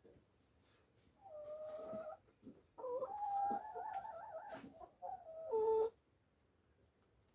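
A backyard chicken calling: three drawn-out, wavering calls in a row over about five seconds, then quiet.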